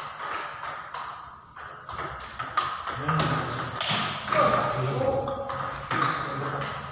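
Table tennis rally: the celluloid/plastic ball clicking off the rubber-faced bats and bouncing on the table, a string of sharp pocks at an uneven pace, with voices in the background.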